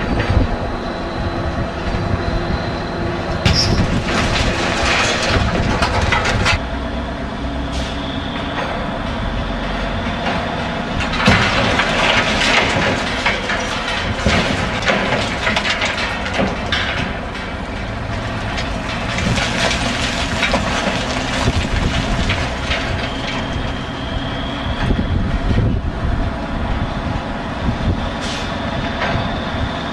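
Wrecking-ball crane's engine running steadily, with three long stretches of louder rattling and clattering over it.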